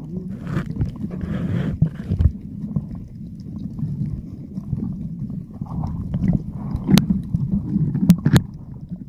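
Muffled underwater noise picked up by a submerged camera: a steady low rumble of moving water with bursts of swishing in the first couple of seconds, and a few sharp clicks near the end.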